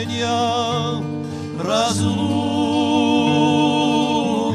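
A singer performs a romance set to a Russian lyric poem, with instrumental accompaniment. The singer holds long notes with a pronounced vibrato, and a new note begins about two seconds in.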